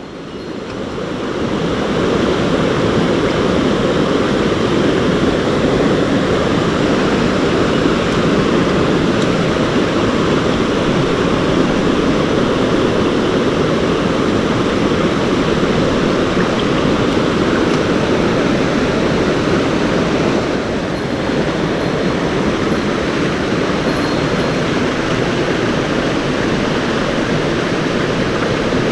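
Mountain stream water rushing steadily over rocks, a loud, even roar.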